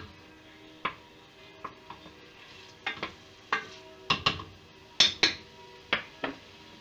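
A wooden spoon knocking and scraping against a stainless steel pressure-cooker pot as chunks of meat are turned in hot oil to brown. About a dozen sharp knocks, irregular, the loudest about five seconds in.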